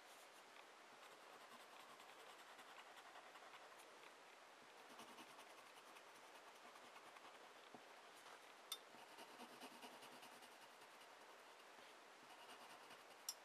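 Wooden graphite pencil scratching on paper as it draws and shades, as faint, continuous strokes. Two short sharp ticks come through, about nine seconds in and near the end.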